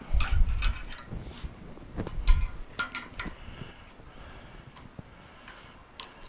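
Small metallic clicks and knocks from a brake-line flaring tool being handled: the clamp bar is loosened and the freshly flared steel brake line taken out. The clicks bunch in the first second and again around two to three seconds in, then thin out.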